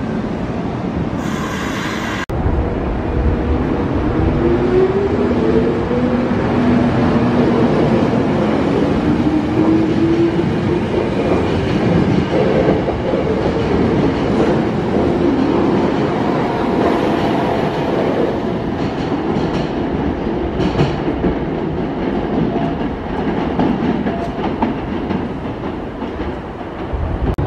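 A Kyoto Municipal Subway Karasuma Line train pulls out of the station. Its traction motors give a whine that rises in pitch as it accelerates. Then comes a steady rumble with wheels clicking over rail joints as the cars pass, easing off near the end.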